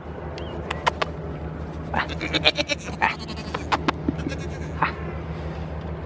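Pygmy goats bleating briefly a few times, around the middle, among scattered sharp clicks and taps.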